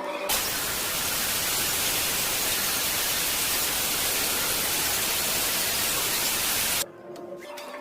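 Steady, even static-like hiss that starts suddenly just after the start and cuts off suddenly about a second before the end.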